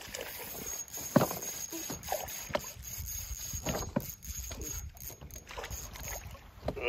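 Handling noise in a small fishing boat as a hooked crappie is fought and reeled in on a spinning rod: scattered knocks and taps, the sharpest about a second in, over a low steady rumble.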